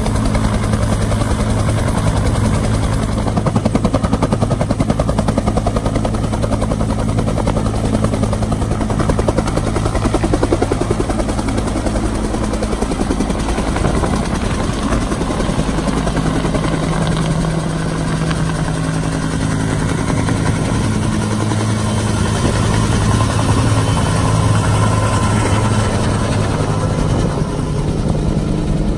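Bell UH-1H Huey helicopter's two-bladed main rotor beating steadily over its turbine as it lifts off and climbs away overhead.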